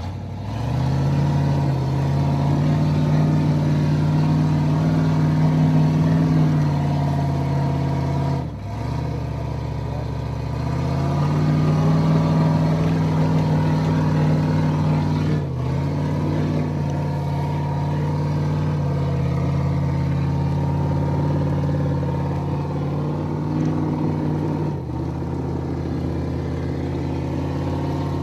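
Engine of a Toyota LandCruiser 80 Series winch truck running at a held, steady speed, its pitch stepping up or down abruptly a few times.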